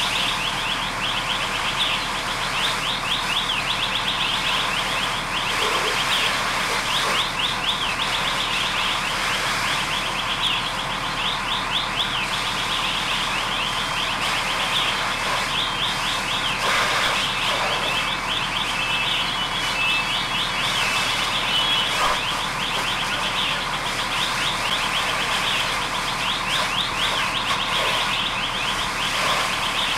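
An electronic alarm sounding without a break as a fast run of rising, chirping sweeps, with a few short steady beeps about two-thirds of the way through, over a constant hiss.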